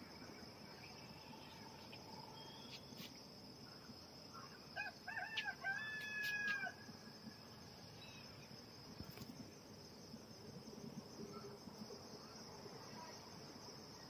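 A rooster crowing once about five seconds in, a few short notes ending in a long drawn-out note, over a steady high drone of insects.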